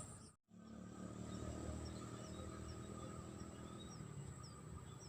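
Faint riverside ambience with a bird repeating short, falling chirps, about two to three a second, over a steady high-pitched hum and a low rumble. The sound drops out briefly near the start.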